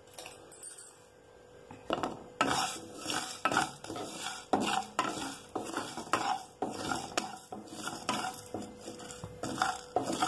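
A wooden spatula stirring and scraping whole spices (coriander seeds, peppercorns, cumin, fennel) around a dry nonstick kadai as they roast, in repeated strokes about two a second. The stirring starts about two seconds in, after a short quiet stretch.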